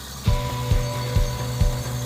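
Borewell drilling rig starts working over the idling engine, with a heavy knock repeating about twice a second and a steady mechanical whine.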